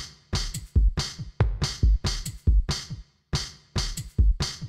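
Electronic background music with a steady drum-machine beat: sharp, regularly spaced drum hits over deep bass thumps.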